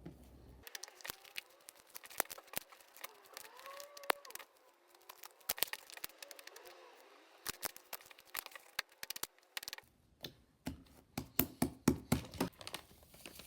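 Fluffy slime being mixed after lotion was added to loosen an overactivated batch: quiet, scattered sticky clicks and pops.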